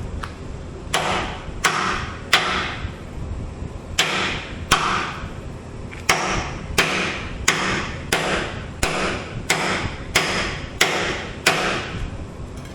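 Hammer blows on metal during axle bushing replacement on a Skyjack SJIII 3219 scissor lift, each strike ringing. About one blow every 0.7 s, with a short pause about two and a half seconds in.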